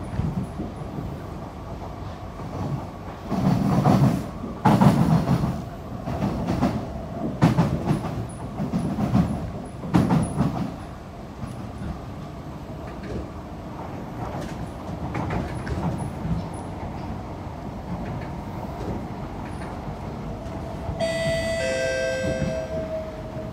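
C151B MRT train heard from inside the car: a steady running rumble, broken in the first half by a run of loud wheel clatters. Near the end the onboard announcement chime rings, and a single tone slowly falls in pitch as the train slows for the station.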